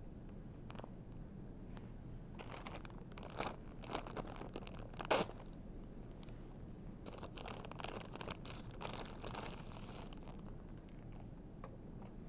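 Plastic packaging of an IV tubing set crinkling and rustling in the hands as the tubing is taken out, in irregular handling noises with a louder crackle about five seconds in.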